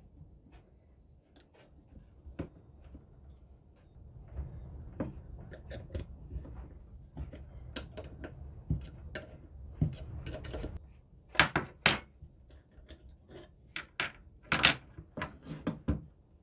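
Metal being handled: scattered clinks and knocks, louder and more frequent in the second half.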